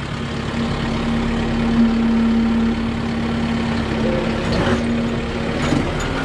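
Diesel tractor engine running steadily at working speed with a constant hum while the tractor pulls an angled rear grader blade cutting a ditch through dirt.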